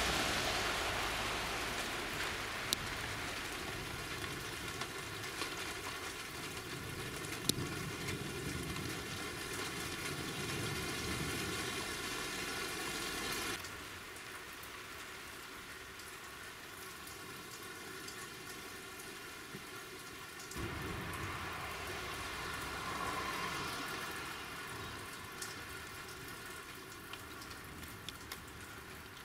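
Rain falling steadily, with scattered sharp drop ticks. It drops suddenly to a lighter patter about halfway through and grows heavier again some seconds later.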